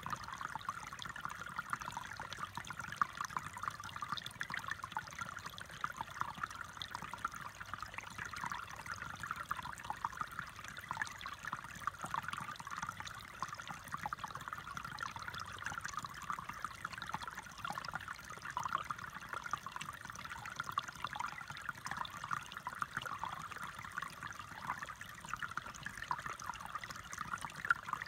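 Shallow stream trickling over rocks: a steady run of small gurgles and splashes.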